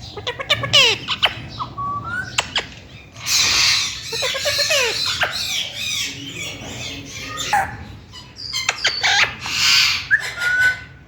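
Green parrot calling: a run of short whistled chirps that bend up and down, sharp clicks, and two long harsh screeches, about three seconds in and again near the end.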